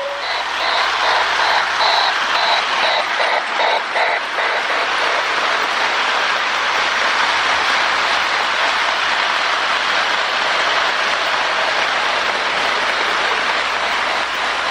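Lionel Berkshire model steam locomotive running, its replacement steam-sound board chuffing about three times a second for the first four seconds. The chuffs then merge into a steady hiss along with the motor and wheel noise. The non-original board doesn't work properly until it warms up.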